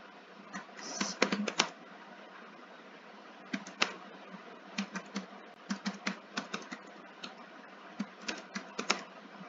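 Typing on a computer keyboard: irregular keystroke clicks in short runs with pauses between them.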